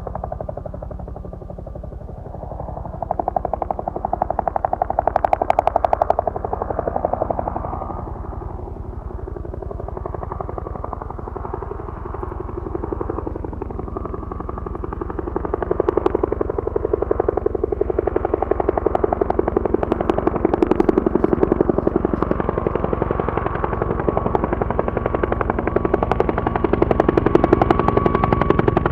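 UH-1H Huey helicopter's two-bladed main rotor beating in a rapid, even chop, growing louder a few seconds in and again about halfway through as it passes close. A few sharp cracks sound over it.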